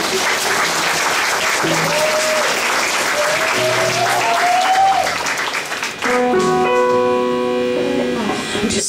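Audience applause for about six seconds, then a sustained keyboard chord comes in, opening the band's next song.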